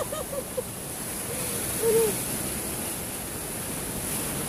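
Sea surf washing and breaking over coastal rocks, a steady rushing wash. A few short voice sounds come through near the start and once about two seconds in.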